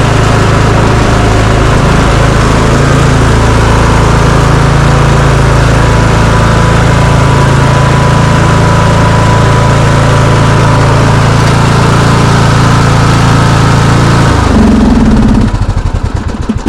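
A custom-built riding lawn mower's engine runs steadily at speed, then slows with a falling pitch and cuts off near the end.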